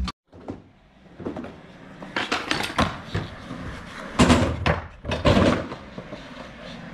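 Skateboard wheels rolling over concrete, with sharp clacks and thuds of the board hitting the slab about 2, 4 and 5 seconds in.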